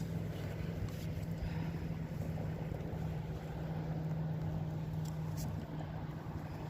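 A steady low motor hum under a constant rushing wash of noise.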